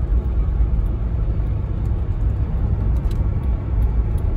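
1995 Land Rover Discovery driving at a steady road speed, heard from inside the cabin: a steady low rumble of engine and tyres, with no clunks or knocks from the front end.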